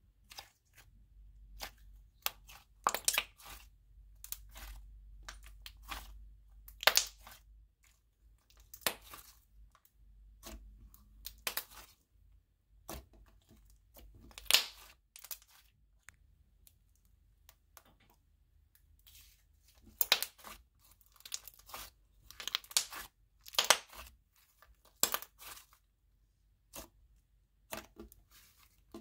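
Thick, clay-textured slime worked by hands, stretched, folded and poked, making irregular sharp crackling pops and sizzling clicks in bunches, with quiet squishing between them. The slime is really sizzly.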